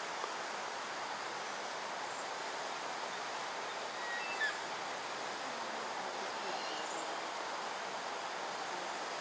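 Steady evening chorus of insects with an even, high cricket-like tone, and one brief faint chirp about four and a half seconds in.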